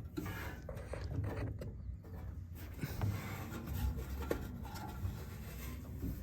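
Loose duct insulation being handled and pulled out by hand: rustling and scraping, with several light knocks and clicks scattered through.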